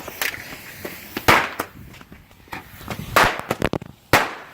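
Consumer fireworks going off out of control: about eight sharp, loud bangs at irregular intervals, several followed by a hissing whoosh. A firework that went wrong is setting off nearby mortar shells and Roman candles.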